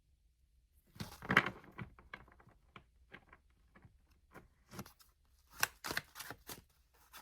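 Tarot cards being handled and shuffled: a run of quick papery flicks and snaps starting about a second in, loudest near the start, with another cluster later.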